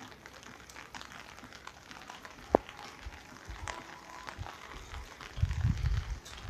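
Faint outdoor background noise, with one sharp click about two and a half seconds in and bursts of low rumbling near the end.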